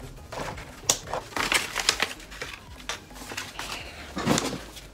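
Close handling noise: an irregular series of clicks, knocks and rustles as hands work the equipment near the microphone.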